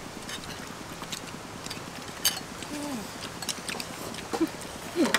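Chopsticks, spoons and a metal ladle clicking and clinking against ceramic bowls and a wok as several people eat noodle soup, in scattered sharp ticks, with a few short murmurs.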